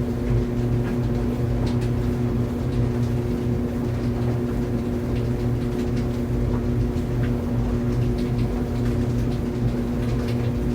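Laundry dryer running: a steady mechanical hum with low rumble and faint, irregular light ticks.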